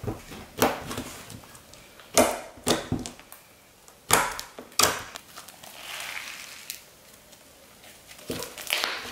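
White glue slime being kneaded and folded by hand with green EVA foam clay worked into it: sticky squelches and several sharp pops, spread through, with a softer stretch of squishing in the middle.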